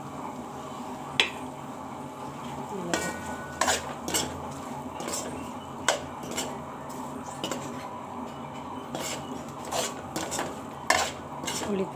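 Metal spoon scraping and clinking against a large metal kadai as whole fried brinjals are stirred into an onion-tomato base. The knocks are irregular, about one a second, and come thicker toward the end.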